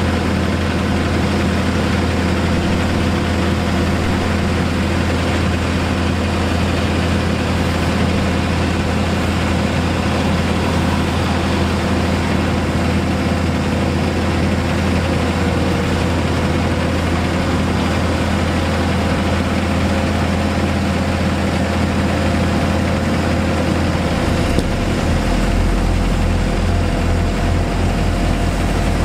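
Heavy diesel engines of asphalt paving machinery running steadily. Near the end the low engine hum drops to a deeper note.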